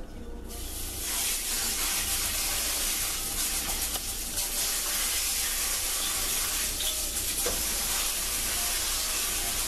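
A marinated chicken breast dropping into a hot, oiled nonstick pan and frying with a steady sizzle that starts about half a second in.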